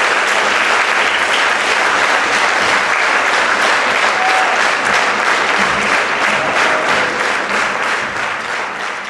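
Audience applauding in a concert hall, a dense steady clapping that thins out and grows quieter near the end.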